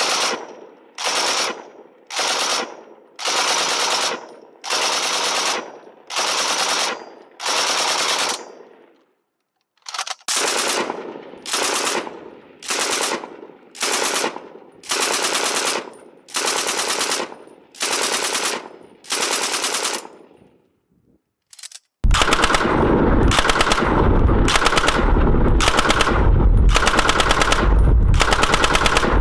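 Model 1914 Lewis gun firing .303 in short, evenly spaced bursts of a few rounds each, about one burst a second, each followed by a brief echo. There is a short pause about nine seconds in. From about twenty-two seconds in it fires one long, continuous, louder burst.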